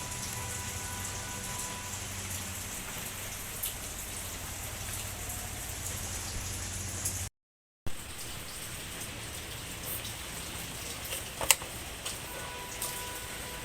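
A steady watery hiss, much like rain falling, cut by a brief dropout about halfway through, with a few sharp clicks later on.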